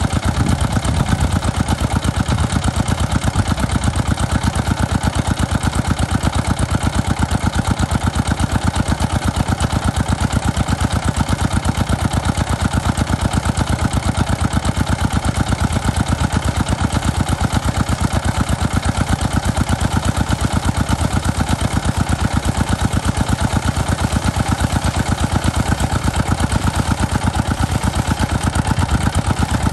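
Small single-cylinder stationary diesel engine running steadily with an even, rapid chug, belt-driving a water pump.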